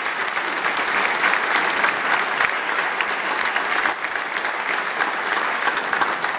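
Seated audience applauding: dense, steady clapping from many hands.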